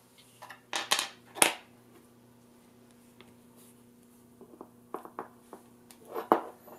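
Small steel pins and aluminium fixture parts being handled and set down on a cardboard-covered bench, making short metallic clicks and clinks. There are a couple of sharper clicks about a second in and near the end, with lighter taps in between, over a faint steady low hum.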